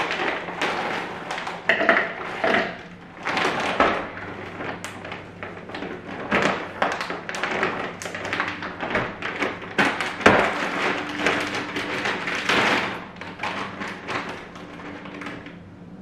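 Plastic bag of frozen dark sweet cherries crinkling as it is handled and opened, with hard frozen cherries tapping and knocking as they drop into a plastic cup.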